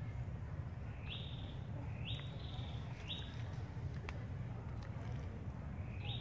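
A bird calling: short notes that sweep up and then hold briefly, three about a second apart and one more near the end, over a steady low rumble.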